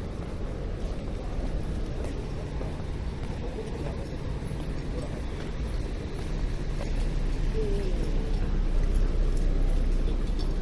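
City street ambience: a steady low rumble of road traffic that grows louder in the second half, with faint voices of passers-by.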